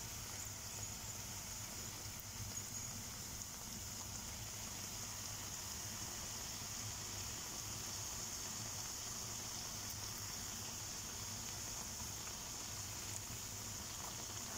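Pişi dough rounds deep-frying in hot vegetable oil in a pan: a steady, even sizzle of bubbling oil.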